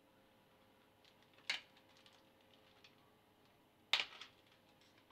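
Hands handling a baked pumpkin tortita and tearing it in half: two short crackling rustles, about a second and a half in and again about four seconds in, with a few faint ticks between.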